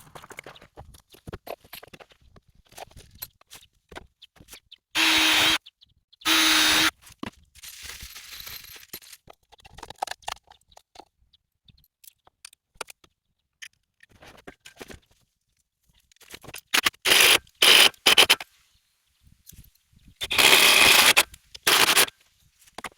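Power drill running in short bursts, driving screws into the wooden bed beneath a sawmill track rail: two brief runs, a quick cluster of stops and starts, then a longer run near the end.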